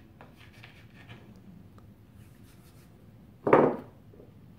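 Faint clicks and rubbing as soft clay scales are pinched and set down on a plastic plate, then one short, loud sound about three and a half seconds in.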